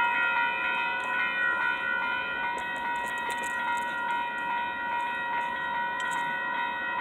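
Several electronic railroad crossing bells ringing at once, their repeated strikes overlapping into a steady, clanging ring.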